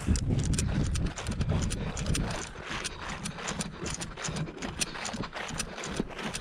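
Goose call blown in quick short clucks and honks to turn a flock of Canada geese, over heavy low rumbling from handling or wind on the microphone in the first couple of seconds.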